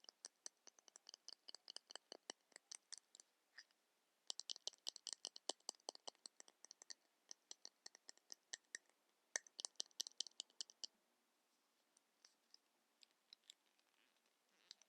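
Rapid ASMR tapping and clicking on makeup packaging, several sharp taps a second in fast runs, with a brief pause about four seconds in. The taps thin out to a few scattered clicks in the last few seconds.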